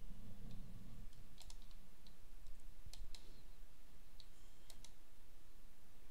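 Scattered light clicks and taps, about a dozen over six seconds at uneven spacing, over a faint low room hum.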